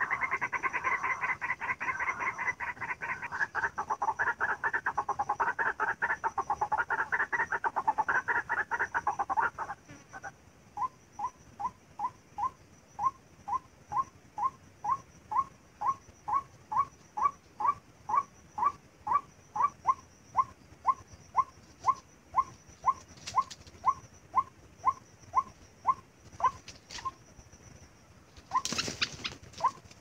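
White-breasted waterhen calls: about ten seconds of dense, rapid calling, then a long run of single monotonous notes at about two a second. A brief loud noise breaks in near the end.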